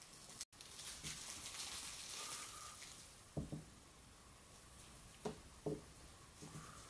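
A cloth rubbing and rustling as it wipes egoma oil over a chestnut wooden spoon, with three soft knocks in the second half as the spoon and hands touch the wooden table. Faint throughout.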